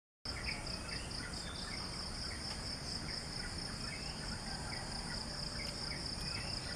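Evening outdoor ambience: a steady high-pitched insect chorus, like crickets, trilling continuously, with short bird chirps scattered through and a low background rumble. It starts suddenly a moment in.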